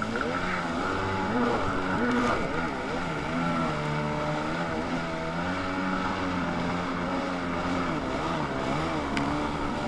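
Stand-up jet ski engine running hard under way, its pitch rising and falling as the throttle is worked, with a steady hiss of water spray from the hull and jet.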